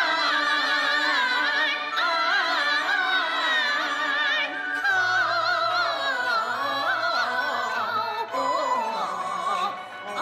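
Liuzi opera aria sung with strong wavering vibrato over instrumental accompaniment, one long ornamented line held without a break.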